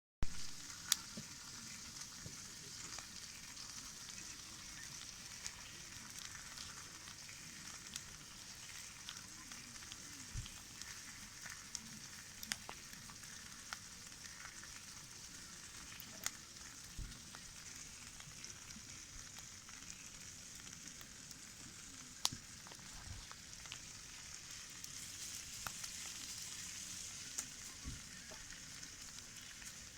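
Campfire burning: a steady hiss with scattered sharp pops and crackles from the burning wood, the hiss swelling slightly near the end.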